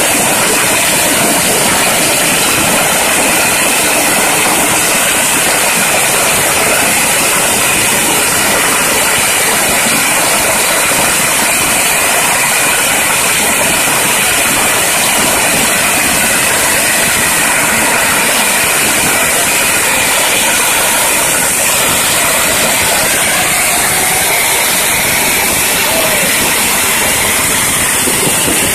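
Firecrackers going off in a long, continuous, dense crackle of rapid bangs.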